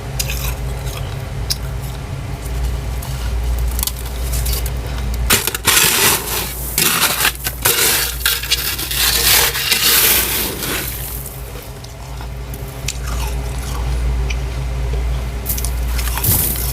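Fluffy frost and ice in a deep freezer being scraped, with light crackles at first, then a long loud stretch of scraping midway, easing off again near the end. A steady low hum runs underneath.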